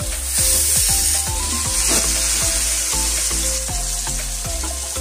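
Mutton and potatoes frying in hot mustard oil in a steel kadhai, sizzling steadily while being stirred with a metal slotted spoon. The sizzle swells sharply about half a second in. Light background music plays underneath.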